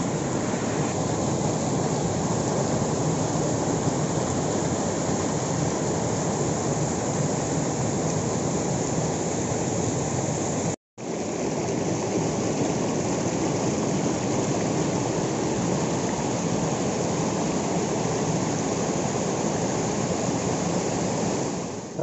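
Waterfall water rushing over and between boulders in a forest stream: a steady, even rush of water that cuts out for a split second about eleven seconds in.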